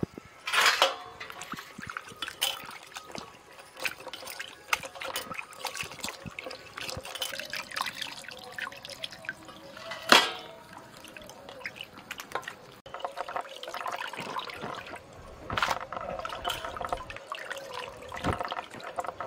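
Raw mutton pieces being washed by hand in a steel bowl of water: water sloshing, trickling and dripping as pieces are lifted out and put into a perforated steel colander, with a sharp knock about ten seconds in.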